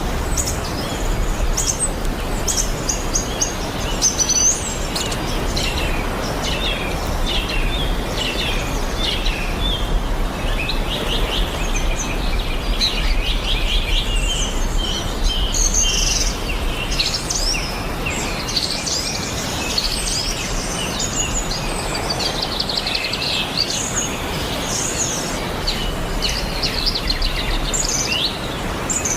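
Many small birds chirping and singing at once, a dense chorus of short overlapping calls and quick trills, over a steady low rumble.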